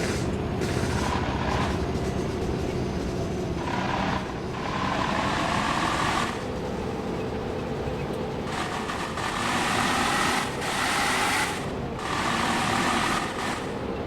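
Large bus engine running, revving up in three stretches of about two seconds each over a steady low rumble.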